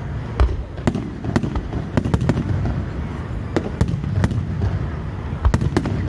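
Aerial fireworks bursting in quick succession: an irregular string of sharp bangs, a dozen or so in a few seconds, over a continuous low rumble of further bursts.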